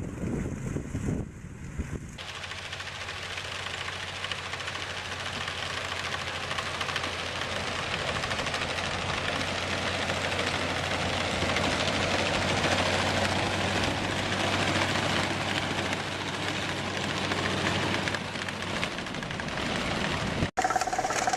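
A heavy vehicle's engine running steadily under a dense rushing noise that builds slowly. There are sudden cuts about two seconds in and just before the end.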